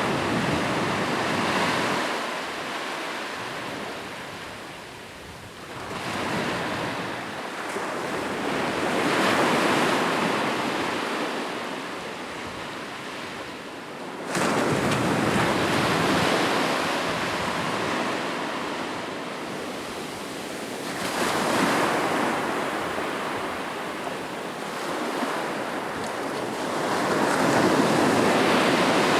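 Ocean waves breaking and washing up the shore, surging and ebbing every five to seven seconds, one wave crashing in sharply about halfway through.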